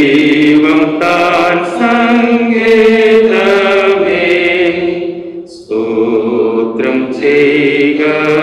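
Voices singing a slow hymn in long, held notes, with short breaks between phrases about five and a half and seven seconds in.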